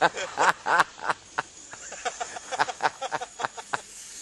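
Birds calling around the campsite: a quick run of short, sharp chirps at irregular intervals, busiest in the first three seconds.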